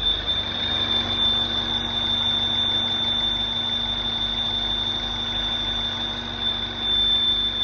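MINI Crossover R60 engine running steadily, with a constant high-pitched whine over it: the abnormal engine noise (異音) the owner is recording.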